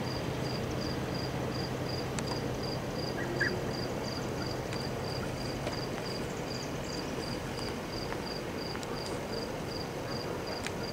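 An insect chirping at a high pitch in an even rhythm of about three to four chirps a second, over a steady background hiss. A low steady hum stops about halfway through.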